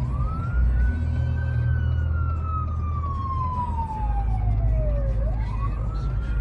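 Fire department emergency vehicle siren wailing, heard from inside a car: the tone rises, falls slowly over about four seconds, then sweeps up again near the end, over a low steady engine and traffic rumble.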